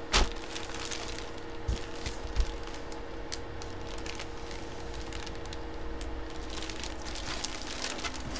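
Plastic packaging rustling and crinkling as hands handle a bagged jersey, with a few knocks on the table, the loudest just after the start. A faint steady hum sits underneath.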